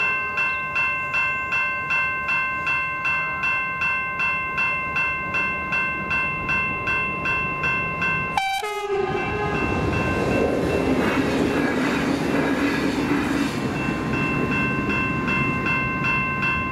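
General Signals E-Bell Type 2 level-crossing bells ringing, about two strokes a second. About eight seconds in, a train gives a short horn blast and passes over the crossing with a rising rumble of wheels and rails. The bells stop right at the end.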